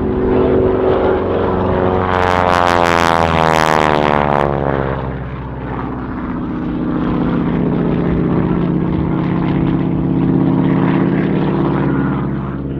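North American Harvard's nine-cylinder Pratt & Whitney R-1340 radial engine and propeller droning through an aerobatic pass. About two seconds in it swells loud and harsh with a falling sweep as it passes close, then settles back to a steady drone.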